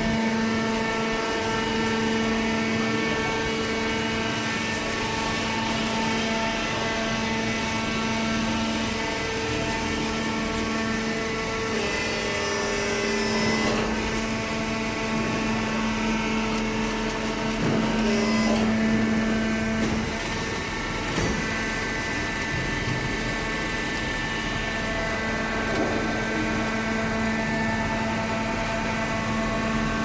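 Hydraulic waste-paper baler's power unit running: a steady hum with a strong low tone and its overtones, shifting slightly in pitch and getting a little louder around the middle.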